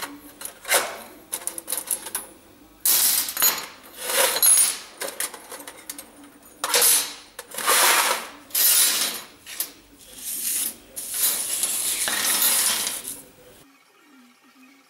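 Repeated scraping strokes with sharp metallic clinks between them, uneven in rhythm, cutting off suddenly near the end.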